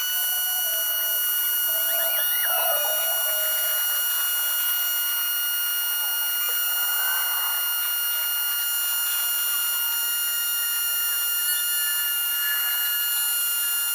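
Built-in air compressor of an Auxito AJ01 jump starter running steadily while inflating a car tire, a continuous high-pitched whine.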